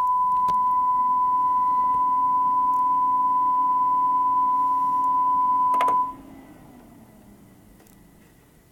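A steady 1 kHz sine test tone played through a Sony MHC-EC99i mini stereo system, held for about six seconds and then cut off, with a click just before it stops.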